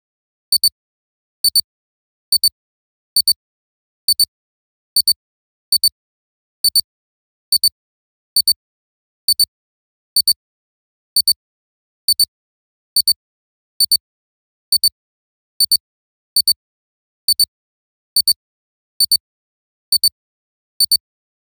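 A high-pitched electronic beep repeating evenly, a little faster than once a second: short, identical pips with silence between them.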